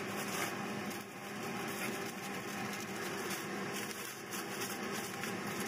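Aluminium foil crinkling and rustling as it is folded by hand around a rack of pork ribs.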